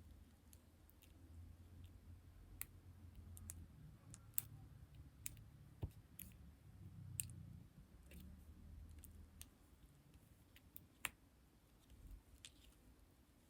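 Faint, irregular clicks and taps from lipstick being handled close to the microphone, over a low rumble of handling.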